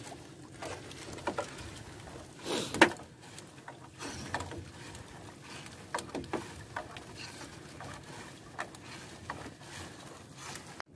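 Fishing net being hauled in by hand, with water pattering and scattered small knocks, and one louder, longer noise a few seconds in.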